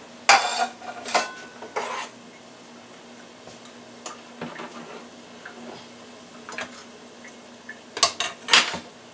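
A ceramic dinner plate is set down on a countertop with a clatter, then metal tongs click and clink against the air fryer rack and the plate while a steak is lifted out, with two sharp clacks near the end. A low steady hum runs underneath.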